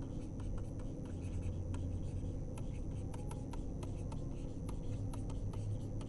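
Faint scratching and light ticking of a stylus writing on a pen tablet, over a steady low hum.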